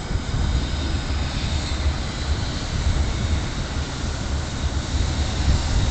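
JR Freight EF65 electric locomotive hauling a train of empty container wagons, approaching with a low rumble that grows slowly louder.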